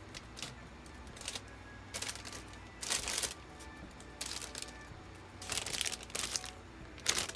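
Gift packaging crinkling and rustling in short bursts, about eight of them, as wrapped items are handled, over faint background music.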